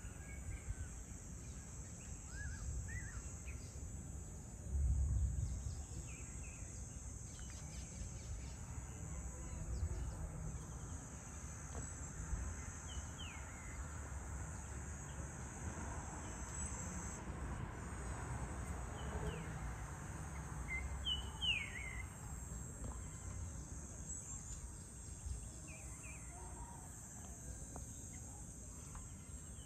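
Insects keep up a steady high-pitched chorus, with birds giving short falling chirps now and then, several close together about 21 seconds in and again near the end. A low rumble runs underneath, with a louder low burst about five seconds in.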